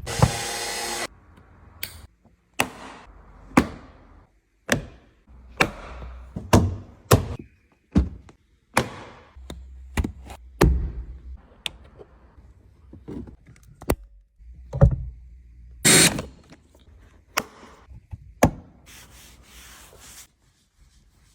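Irregular sharp knocks and thunks of objects being handled, roughly one a second. There is a short hissing burst at the start and another near the end.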